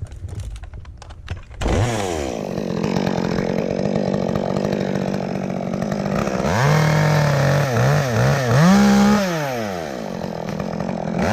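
A chainsaw is throttled up about a second and a half in and runs at speed. From about halfway, its revs rise and fall again and again.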